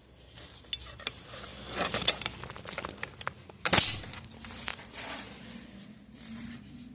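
Handling noise from a smartphone being picked up and turned by hand: irregular rubbing, scrapes and clicks right on its microphone, busiest in the middle, with one loud knock a little under four seconds in.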